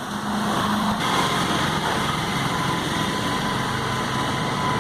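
A small engine running steadily, with a faint steady whine over an even hum.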